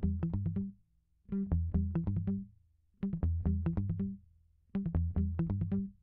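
Background music: an electronic track with synthesizer and drum-machine beat, playing in short rhythmic phrases with brief pauses between them.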